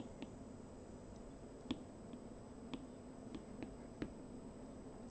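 Plastic stylus tip tapping and stroking on an iPad's glass screen: about half a dozen light, sharp clicks, irregularly spaced, over a faint steady hum.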